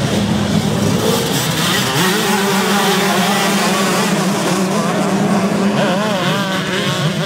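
A pack of motocross bikes accelerating past close by, many engines revving at once and overlapping, their pitch rising about two seconds in, then pulling away.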